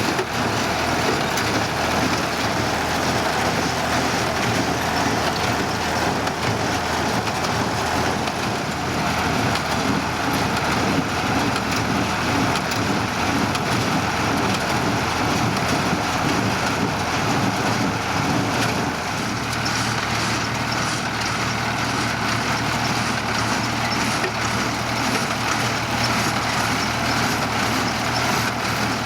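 Ford 3000 tractor's three-cylinder engine running steadily under load while pulling a small-bale hay baler. About two-thirds of the way through, the engine note changes and a steady low hum comes through more plainly.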